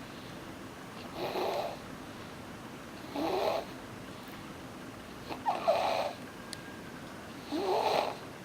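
A newborn baby snoring: four short snores, evenly spaced about two seconds apart, with quiet breathing between them.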